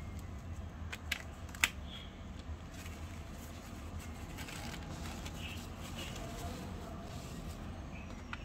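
Paper towel crinkling and rustling as it is worked off a small glass jar, with a few sharp clicks in the first two seconds, the loudest about a second and a half in. A steady low hum runs underneath.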